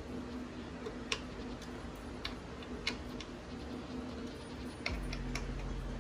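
Scattered, irregular light clicks and ticks of a hand tool working the gaming chair's metal bolts as they are checked for tightness. A low steady hum comes on near the end.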